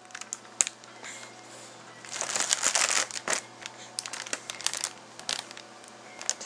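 Crinkly wrapping being crumpled and handled: irregular rustles and crackles, densest from about two to three seconds in, then scattered.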